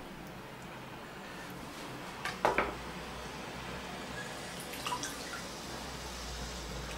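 Quiet room noise with two short, sharp clicks about two and a half seconds in and a couple of fainter ticks near five seconds.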